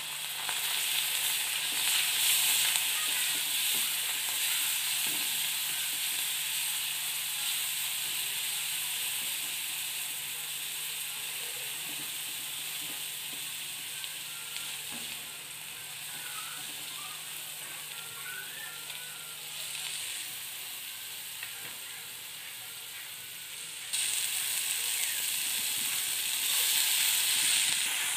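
Oil sizzling in a steel wok while a wooden spatula stirs and scrapes a green spice paste. The sizzle jumps louder suddenly near the end, as green peas go into the hot oil.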